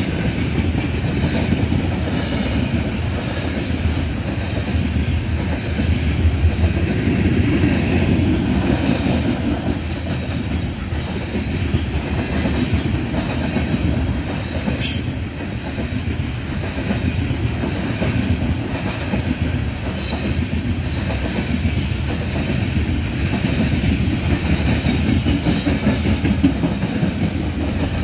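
Freight train coal cars rolling past: a steady rumble of steel wheels on the rails with a rhythmic clickety-clack, and a sharper clack about halfway through.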